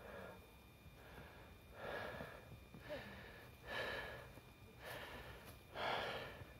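A person breathing, a soft puff of breath about every second, every other one stronger.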